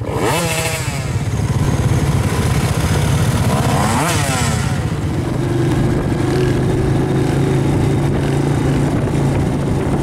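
Off-road engines running: a dirt bike engine revs up and back down twice, near the start and about four seconds in, over the steady drone of an ATV engine close by.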